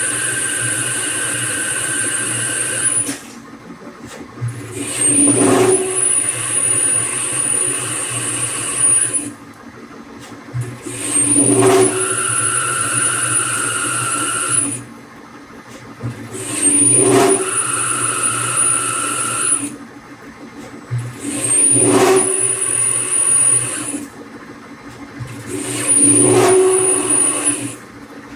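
LEVIL LTC30 CNC lathe cutting 4140 alloy steel in repeated passes: a steady high-pitched whine during each cut of about three seconds, then a short knock and a quieter pause, repeating roughly every five to six seconds.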